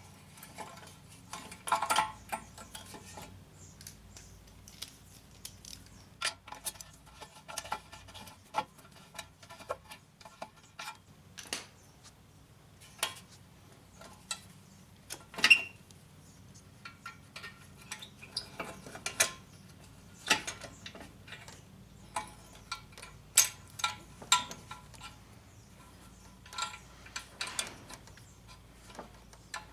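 Hand tools and metal muffler parts clinking and knocking at irregular intervals while a broken muffler piece is being bolted onto the lawn mower's exhaust.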